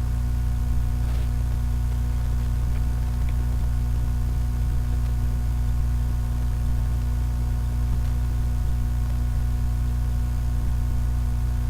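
Steady low electrical hum with a stack of even overtones above it, unchanging in level.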